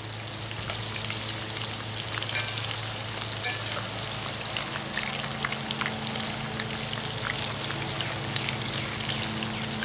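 Battered onion rings deep-frying in hot oil, a steady sizzle full of small crackling pops, with a low steady hum underneath.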